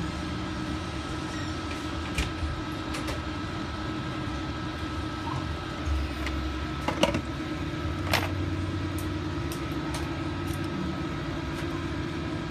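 A steady low mechanical hum, like a fan or motor running, with a few sharp clicks about two, three, seven and eight seconds in from small parts and tools being handled on the workbench.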